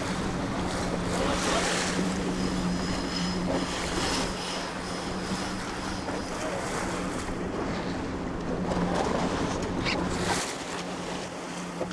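Wind buffeting the microphone and water splashing around a small boat, over the steady low hum of the boat's motor, which fades out about ten and a half seconds in.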